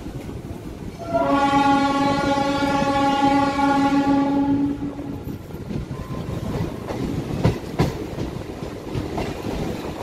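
MEMU train's horn sounding one long blast of about three and a half seconds, starting about a second in, over the rumble of the moving train. After it the wheels clatter on, with a couple of sharp clacks over rail joints.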